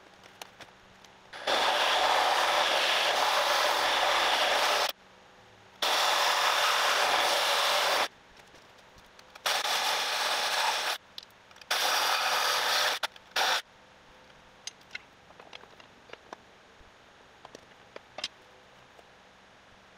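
Cordless reciprocating saw cutting a starter clearance notch into the cast aluminium bell housing of a Toyota E153 transaxle, in four runs of a few seconds each with short pauses between. Light clicks and taps follow in the last few seconds.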